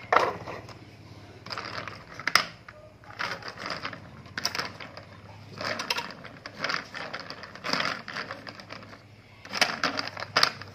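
Plastic toy vehicles handled and rolled on a wooden floor: short bursts of rattling plastic clatter, with a sharp knock about two seconds in.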